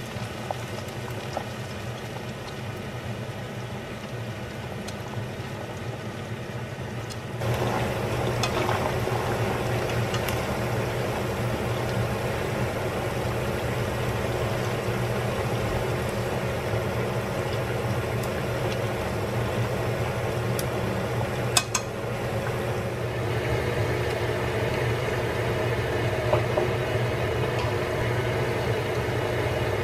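Hot oil sizzling and bubbling around battered chicken pieces and shiitake mushrooms deep-frying in a pot, with a steady hum underneath. The sizzle gets louder about seven seconds in, and there is one sharp click a little past twenty seconds.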